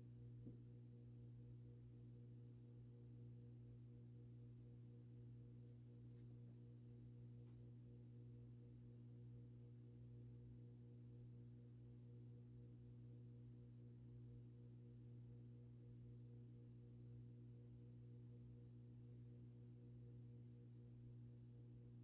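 Near silence with a faint, steady low electrical hum that holds its pitch and level throughout, and a single light click about half a second in.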